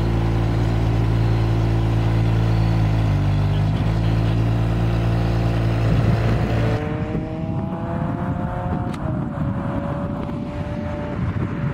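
Ferrari 599 GTO's V12 engine running steadily at low revs. After a sudden change about seven seconds in, it sounds farther off and its pitch rises as the car accelerates, with a gear change near nine seconds in before it climbs again.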